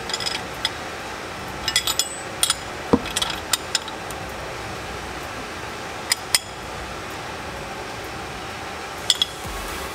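Wrench and hex key clinking against the bolts of a billet aluminium driveshaft adapter plate as it is evenly tightened to the differential flange. The clinks come in short, scattered clusters over a steady low background hum.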